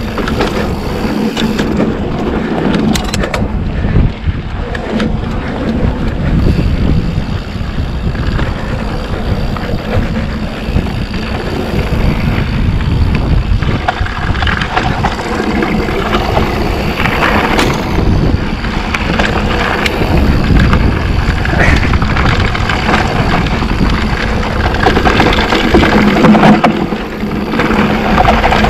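Mountain bike ridden along a dirt singletrack, heard from a bike-mounted action camera: steady wind buffeting on the microphone over tyre rumble and the bike rattling on the rough trail, with a few sharp clatters about two to three seconds in.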